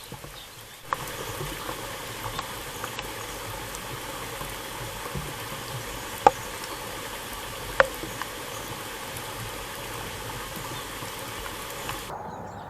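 Steady rain pattering, with two louder drops striking close by in the middle.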